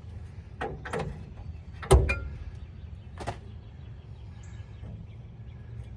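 A few sharp metallic knocks and clanks from tools and parts being handled while a truck's rear axle is unbolted, the loudest about two seconds in with a short ring after it, over a low steady rumble.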